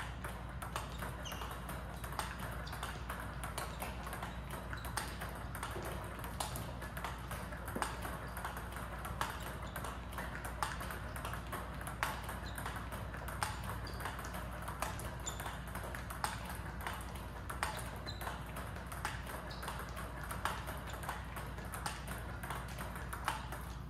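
Table tennis ball fed by a Power Pong robot: a steady stream of sharp clicks as the plastic ball bounces on the table and is struck back with the paddle, stroke after stroke.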